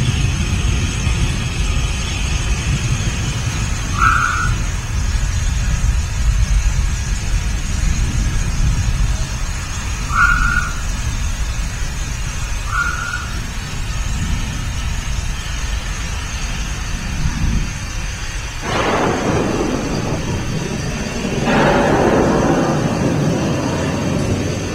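Designed thunderstorm soundtrack for an indoor rainforest installation: a continuous low thunder rumble under rain hiss. Two louder surges of noise come about three quarters of the way through.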